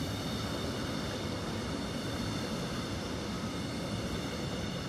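Korail commuter electric multiple unit passing close by: a steady rumble of wheels running over the rails, with a steady high whine above it.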